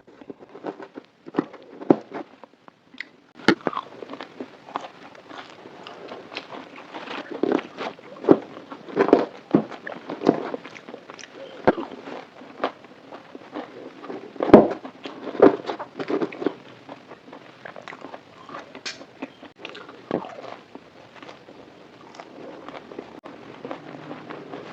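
Close-miked eating: biting into and chewing crispy fried food, with irregular crunches and wet clicks throughout and a loud crunch about two thirds of the way through.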